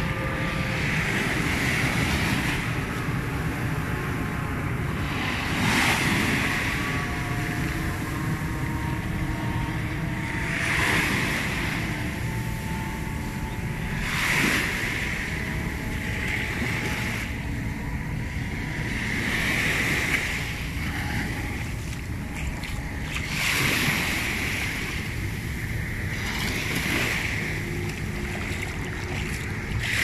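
Small waves washing up on a sandy beach: a surge of fizzing hiss about every four to five seconds as each wave breaks and runs up the sand, over a steady low rumble.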